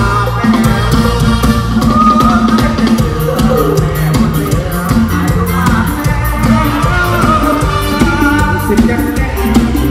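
Loud live band music with a singer over a drum-kit beat and bass.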